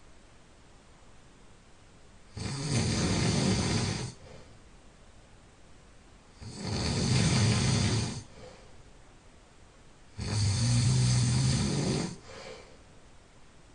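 A person snoring loudly in sleep: three long snores about four seconds apart, each lasting nearly two seconds, with quiet breathing gaps between.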